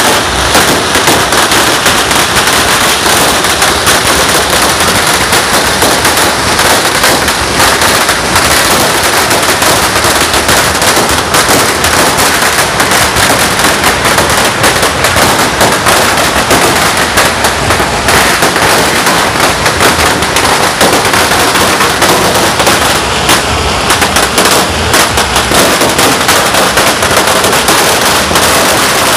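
Firecrackers and fireworks going off in a dense, continuous, very loud crackle of rapid pops with no pause.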